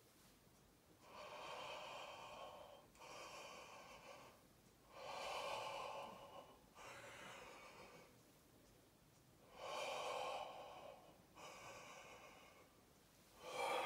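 Faint, slow, deep breathing in and out through a wide-open mouth during a backward-arching stretch: about three full breaths, each a louder phase followed by a softer one, with short pauses between them.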